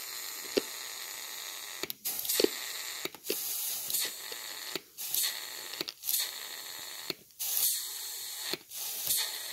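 IPR (injection pressure regulator) valve from a 6.0L Powerstroke clicking as its solenoid is energized by touching battery leads to its terminals: a few sharp clicks at irregular intervals over a steady hiss. The clicking is the sign of a working valve.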